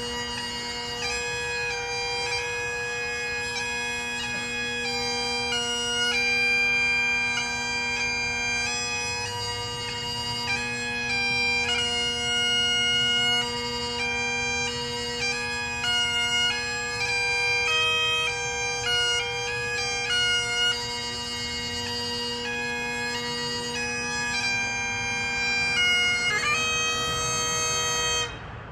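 Bagpipes playing a slow melody over steady drones, stopping abruptly at the end.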